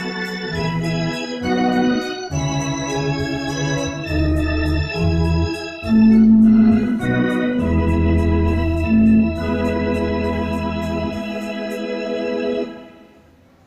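Electronic arranger keyboard played with an organ voice: a slow tune in held chords over sustained bass notes. The final chord fades out about a second before the end.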